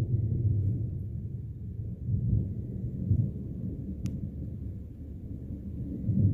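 Thunder from an approaching storm rumbling low and continuously, swelling several times.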